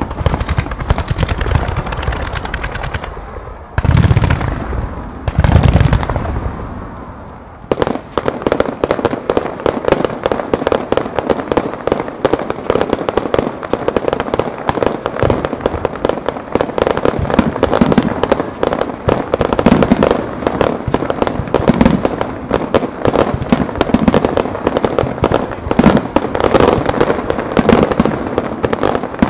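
Fireworks display: two deep booms of bursting shells about four and five and a half seconds in, then from about eight seconds on a long run of dense, rapid crackling and popping.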